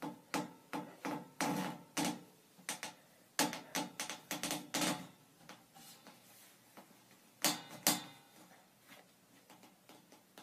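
Irregular knocks and rustles of a person moving close to the microphone, coming thick and fast for the first few seconds, then two sharp knocks in quick succession, then only faint ticks.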